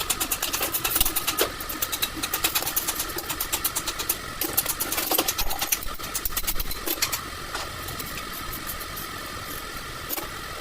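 Rapid, irregular mechanical clicking and rattling over a steady machine hum; the clicking dies away about seven seconds in, leaving the hum.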